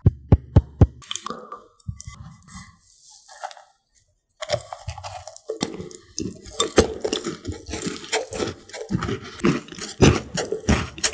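A few sharp taps and handling sounds, then, about four and a half seconds in, a bite into a large cream-topped green tea scone followed by close-miked crunching and wet chewing of the crumbly scone and cream.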